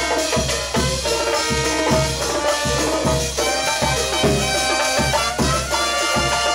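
Peruvian banda dance music playing loudly over PA speakers: a steady low beat about two and a half times a second under sustained melody lines.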